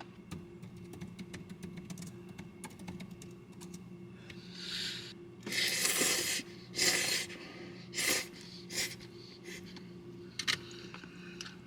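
Typing on a computer keyboard: quick runs of small key clicks, with several louder rustling noises in the middle, over a steady low hum.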